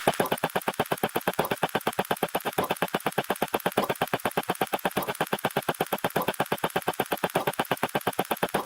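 A rapid, even stream of short electronic synthesizer notes, about ten a second.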